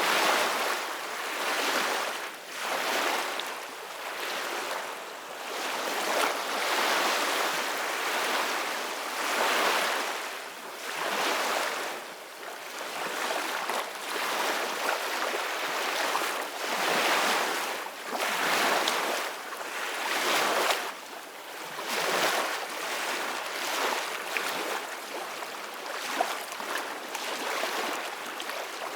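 Soft ocean waves washing in: a hiss of surf that swells and fades every couple of seconds, with a couple of brief ticks in the second half.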